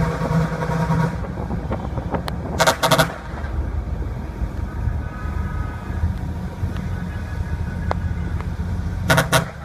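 Vehicle horn sounding two short blasts, one about three seconds in and another near the end, over a steady low vehicle rumble.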